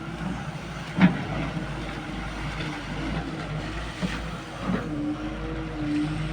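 Excavator diesel engine running steadily, with a few sharp knocks from the machine working: a loud one about a second in and two more near the five-second mark.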